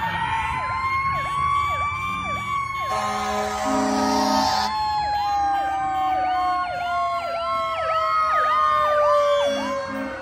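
Several emergency-vehicle sirens sounding at once. A long wail rises over the first couple of seconds and then slowly winds down, layered with a faster siren that swoops up and down about twice a second. A low horn blast sounds about three to four and a half seconds in, and short horn toots come near the end.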